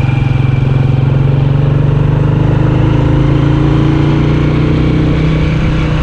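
Motorcycle engine running steadily as the bike rides along a road, its note holding even with only slight changes in pitch.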